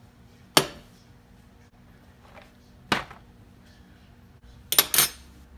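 A metal saucepan and a cardboard box being set down on a glass-top electric stove: sharp clacks about half a second in and again about three seconds in, then a quick double clack near the end.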